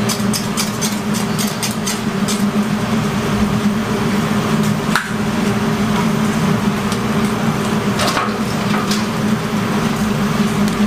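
Commercial deep fryers full of frying chicken, giving a steady hiss over a low mechanical hum. Metal tongs click against the fryer rims and wire grates, in a quick run of clicks in the first couple of seconds and a few more about halfway and near the end.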